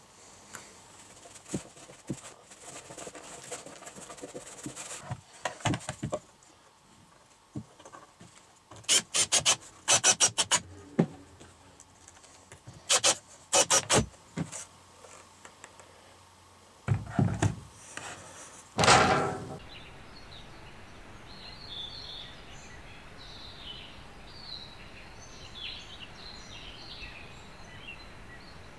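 Wood being handled and rubbed, then a cordless drill driving screws into the pine birdhouse in two groups of short bursts, followed by a couple of heavier thumps. After that, small birds chirp over a steady outdoor background.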